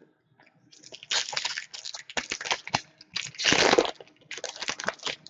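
Foil wrapper of a 2014-15 SP Authentic hockey card pack being torn open and crinkled by hand: a run of crackling bursts, loudest about three and a half seconds in.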